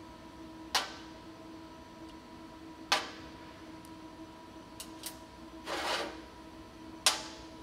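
Small copper and brass plasma-torch consumables being pulled apart by hand and set down on a steel tabletop: three sharp metallic clicks, the last near the end, with a couple of lighter ticks and a brief scrape between.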